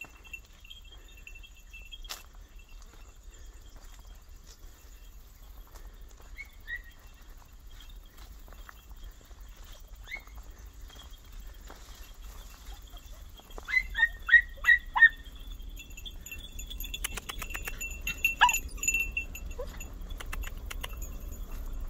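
Bells on podenco hunting dogs jingling as the dogs work through the crop. About two-thirds of the way in comes a quick run of five short, high yelps, then a spell of rapid jingling as a dog moves fast.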